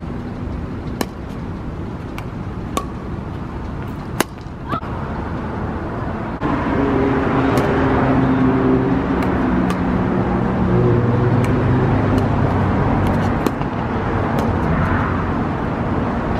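Pickleball paddles popping against a plastic ball every second or two, over steady wind noise on the microphone. From about six seconds in, the low drone of a vehicle engine joins and gets louder.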